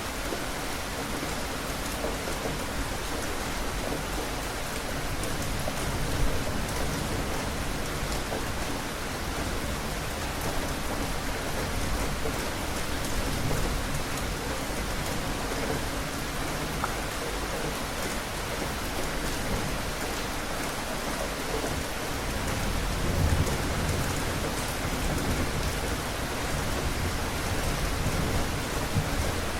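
Steady, continuous rain falling on surfaces. A low rumble swells up twice, around the middle and again about three quarters of the way through.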